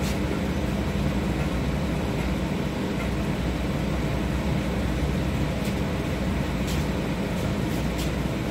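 Inside a 71-631-02.02 tram car standing still: a steady low hum from its onboard equipment, with a few faint ticks about two-thirds of the way through.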